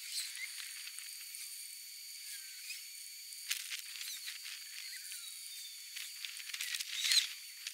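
Putty knife scraping the old finish off the veneered wooden top of a 1937 Zenith tombstone radio cabinet: a few scratchy strokes, with a quicker, louder run of them near the end.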